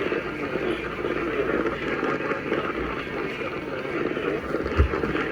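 Steady rushing static-like noise, with a short dull thump near the end.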